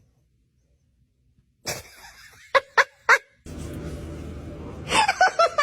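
Short pitched animal cries, three quick ones and then a run of falling cries near the end over a low rumbling noise, after a silent start.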